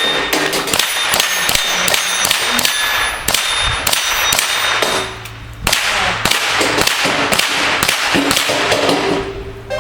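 A rapid run of gunshots, several a second, many followed by a brief metallic ring from hit steel targets, with a short lull about five seconds in.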